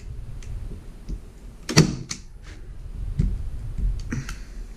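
Hand-held manual staple gun firing a staple into a wooden seat frame: one sharp, loud snap a little under two seconds in, with fainter clicks and handling knocks from the gun and frame around it.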